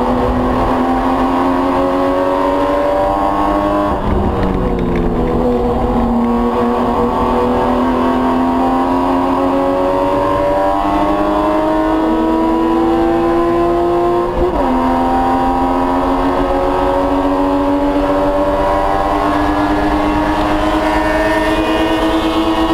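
Spec Boxster race car's flat-six engine at full throttle, heard from inside the cabin, its pitch climbing steadily as the car gathers speed. Two upshifts, about four seconds in and again past the middle, each drop the pitch before it climbs again.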